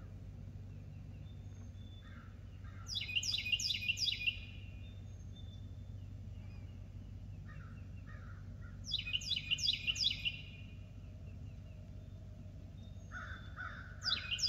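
A songbird sings the same short phrase three times, about six seconds apart. Each phrase is a few lower notes and then a quick run of about four descending whistled notes, over a steady low hum.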